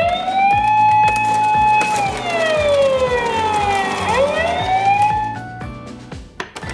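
Emergency siren wailing: the pitch rises, holds, slides slowly down and rises again before fading out near the end. Background music plays underneath.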